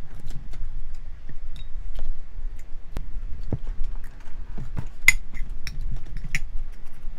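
Wooden spoon scooping rice off a ceramic plate: scattered scrapes and light taps, with the sharpest clicks about five and six seconds in.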